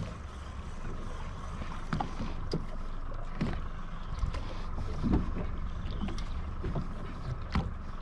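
Steady wind and water noise on a small fishing boat, with a sharp knock right at the start and a few lighter clicks and knocks after it.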